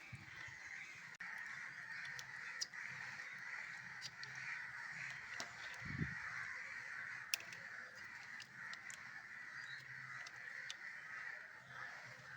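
Faint, steady bird calls throughout, with scattered light clicks and a low thump about six seconds in.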